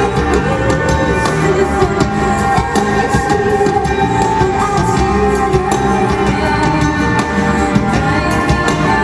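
Live rock band music with drum kit and guitar over held tones, playing steadily with no clear singing.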